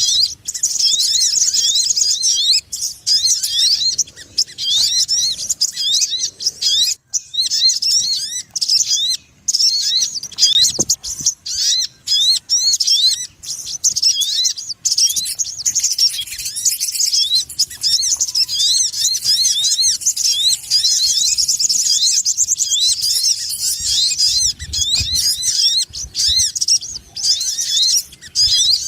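Sogon bird lure-call recording: fast, continuous, busy chirping, many short rising notes a second in a high pitch, with only brief breaks.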